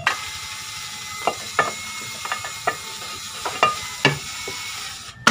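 Light clicks and taps of a motorcycle engine's clutch cover being handled and seated against the crankcase by hand, over a steady hiss that cuts off near the end.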